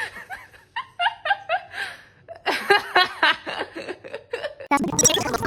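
People laughing in repeated short bursts, with a louder, rougher burst near the end that cuts off suddenly.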